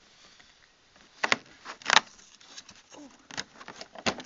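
Cardboard door of a Yankee Candle advent calendar being pried open by hand: a handful of short, sharp snaps and rustles of card, the loudest about two seconds in.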